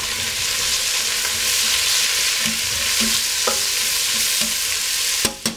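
Cubed potatoes and chopped onion, celery and green pepper sizzling in butter and oil in a stainless steel pot while being stirred in, with a few light knocks of the utensil. The sizzle stops abruptly near the end.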